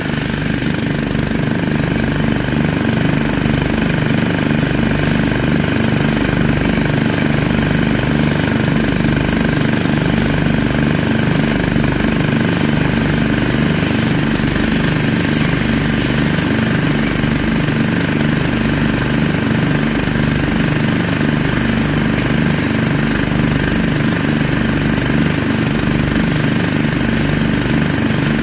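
Small gasoline engine on a floating gold dredge, running steadily at constant speed to drive the dredge's water pump, with an even low pulsing.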